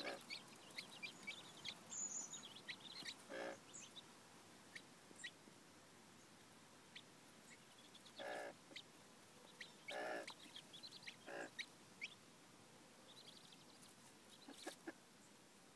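Mother hen clucking to her chicks: four short low clucks spaced a second or more apart. Chicks peep in quick high notes, in a cluster over the first few seconds and again near the end.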